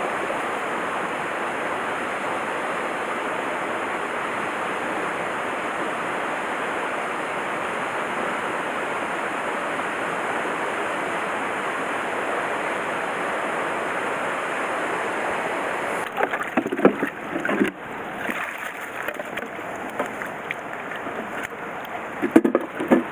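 Mountain stream water rushing steadily over rocks. About two-thirds of the way through it cuts off abruptly to a quieter background with a few short knocks and handling noises.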